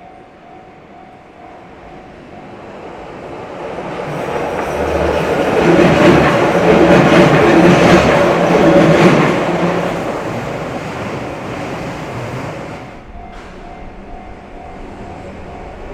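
A train passes over a railway crossing, building to its loudest about six to nine seconds in with wheel clatter, then fading. The crossing's warning bell rings in a steady repeating tone, drowned out as the train goes by and heard again near the end.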